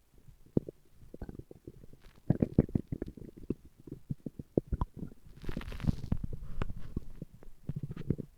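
A man's stomach growling and gurgling: a rapid, irregular run of short gurgles and pops, thickest about two to three seconds in, with a longer hissing rumble about halfway through.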